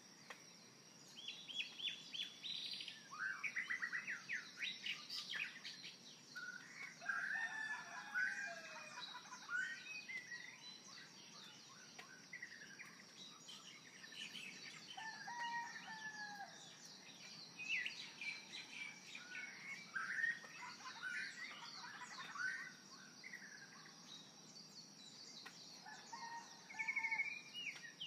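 Birds chirping and singing: many short chirps, quick trills and sliding calls that come and go, over a steady high-pitched hiss.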